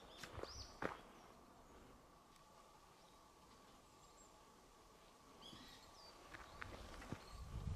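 A few short, high bird chirps over near silence on a mountain trail. Footsteps crunch on the path in the first second and again near the end.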